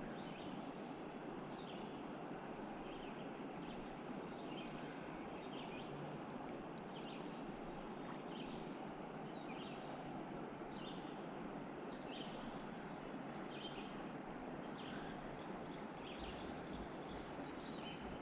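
Steady rush of flowing river water, with many small birds chirping over it.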